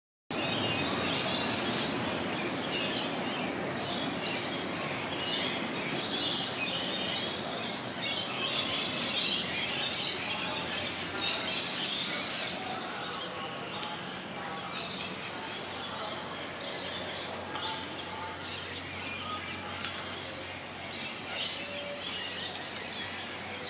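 Many birds chirping and calling over a steady hiss of outdoor background noise, with a faint low hum underneath.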